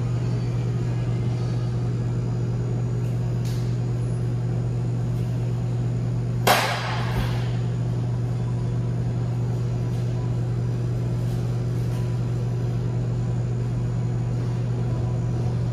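Steady low hum of a restaurant's ventilation system. A single sudden sharp clatter comes about six and a half seconds in and dies away within a second.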